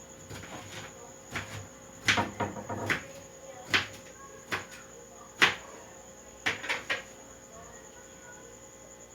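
Scattered knocks and clatter of kitchen work, objects and utensils being handled and set down at irregular moments, over a faint steady hum.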